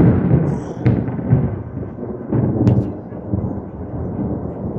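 Loud rolling thunder rumbling low and swelling several times.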